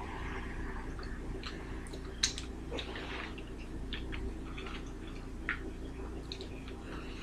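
People chewing mouthfuls of fast-food burger and fries, with soft wet mouth sounds and a few light clicks, over a steady low hum.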